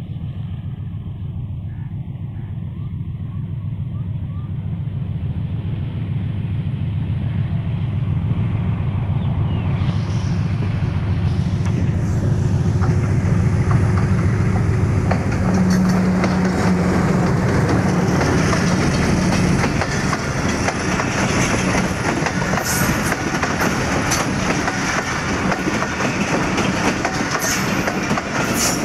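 Diesel locomotive pulling away under power, its low engine drone growing louder as it approaches and passing close about halfway through. Then the passenger coaches roll by with steady wheel-on-rail noise and the clickety-clack of wheels over rail joints.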